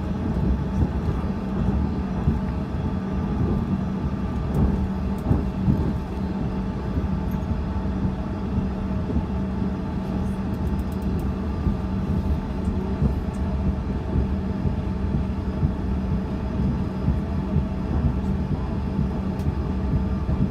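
Cabin noise of a Bombardier CRJ-200 on the ground: the rear-mounted General Electric CF34 turbofans hum steadily at low thrust over a low rumble from the airframe and wheels.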